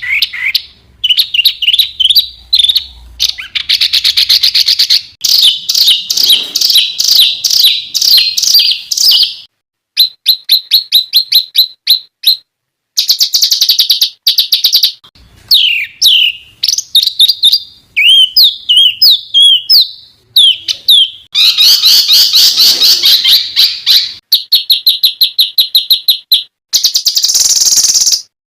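Loud songbird tutor recording: rapid strings of high-pitched repeated notes, trills and sliding chirps from several selected songbirds, spliced together so that the phrases change abruptly every second or two, with a few brief dead-silent breaks between them.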